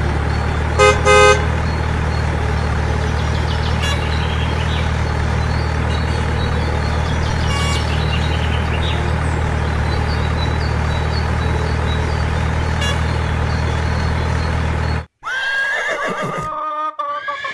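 A dubbed vehicle engine sound running steadily, with a car horn beeping twice about a second in. Near the end it cuts off abruptly and a horse whinnies.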